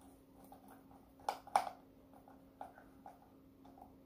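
Small plastic clicks and knocks from hands fitting parts on a car headlight housing, with two louder clicks close together about a second and a half in, over a faint steady hum.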